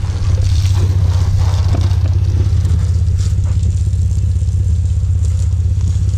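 Steady low drone of a running engine, with the faint hiss of a hose spray wand jetting water onto a car.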